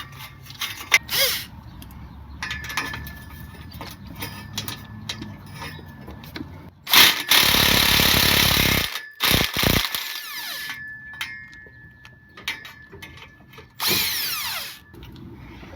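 Milwaukee power tool run in two bursts, one of about two seconds and a shorter one near the end, breaking rusted exhaust bolts loose, with metallic clicks and rattles between the bursts.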